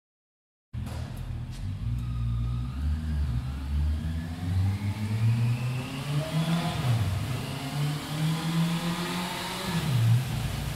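Honda CBR650R inline-four engine running through its stock exhaust, cutting in suddenly after a short silence. It is revved, with the pitch climbing through the middle and two quick dips and recoveries near the end.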